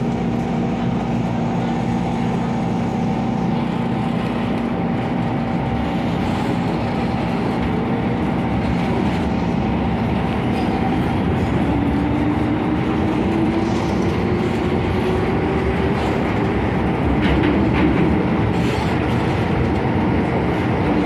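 MTR Kwun Tong line M-Train electric multiple unit running on the track with a steady rumble. About halfway through, a whine rises in pitch as the train picks up speed, and a few sharp clicks come from the wheels near the end.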